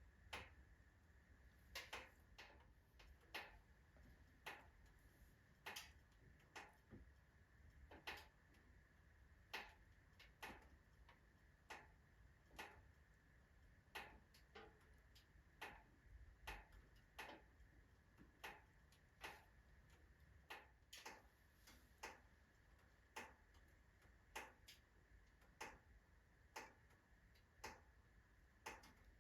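Oak logs burning in a fireplace, crackling with sharp, irregularly spaced pops about once a second over a faint low rumble.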